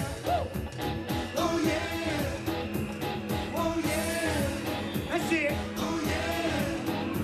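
Live pop song over an outdoor concert PA: male voices singing over a steady beat.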